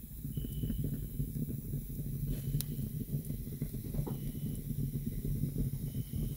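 Wood fire burning in a fireplace: a steady low rush of flames with hissing and a few faint crackles.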